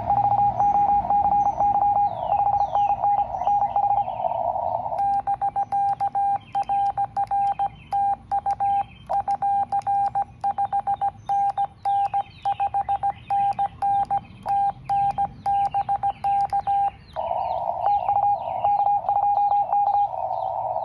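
Fast Morse code (CW) from an amateur radio receiver: a single steady beep keyed on and off in rapid dits and dahs, at about 30 words per minute.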